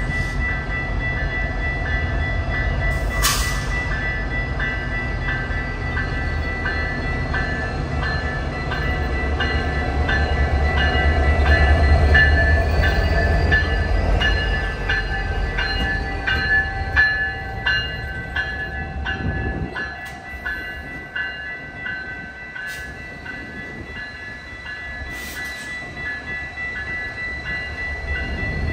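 Passenger train passing: a low rumble builds to its loudest about twelve seconds in and falls away at about twenty seconds. An evenly repeating high ding sounds throughout.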